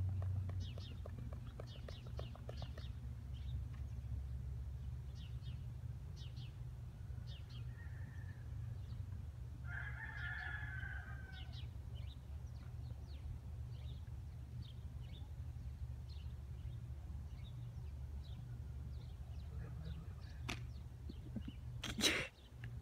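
Birds calling in the background: short repeated chirps throughout, and one longer chicken-like call about ten seconds in, over a low steady rumble. A single sharp smack near the end.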